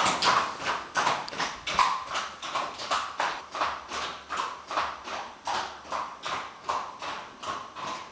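Horse's hooves clip-clopping on cobblestones at a walk, about three hoof strikes a second, growing fainter as the horse moves away.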